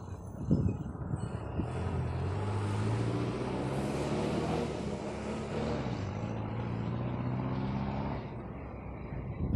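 A city bus driving past, its engine hum and road noise building to a peak about four seconds in and then fading. A short knock sounds about half a second in.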